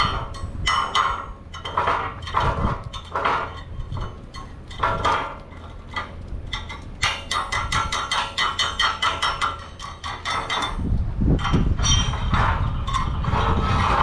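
Steel plate held in pliers being struck again and again with a hammer to knock torch-cutting slag off its edge, the plate ringing with each blow. Around the middle the blows come in a quick run of several a second.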